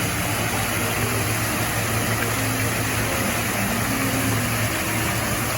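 Steady rushing noise, with faint short tones low down.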